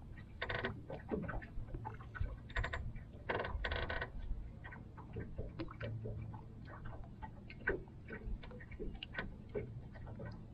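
Small waves lapping and ticking irregularly against the boat hull, with a few louder brief splashy bursts in the first four seconds over a steady low rumble.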